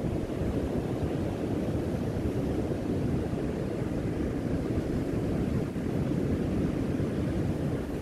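Ocean surf washing onto a sandy beach, mixed with wind buffeting the microphone: a steady low rumble with no distinct breaks.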